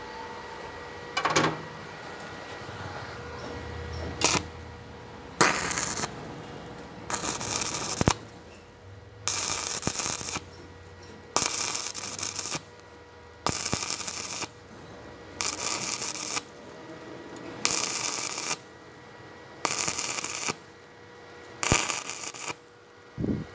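Stick-welding arc crackling and hissing in about nine bursts of a second or so, roughly every two seconds, as the arc is struck and broken again and again on steel, after a couple of brief crackles at the start.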